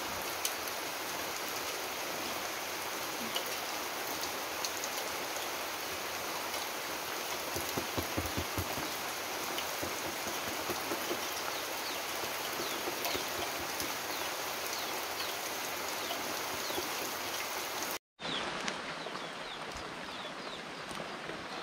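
Steady rain falling, an even hiss with many small scattered drop clicks. It cuts out for a moment about 18 seconds in, then carries on a little quieter.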